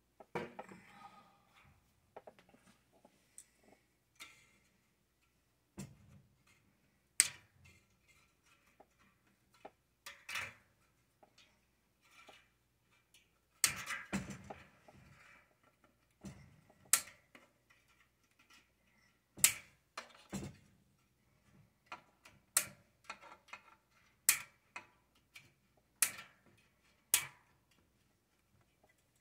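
Hand wire cutters snipping off excess chicken wire, a sharp click with each cut, about ten cuts a second or two apart, with softer rustling of the wire mesh between cuts.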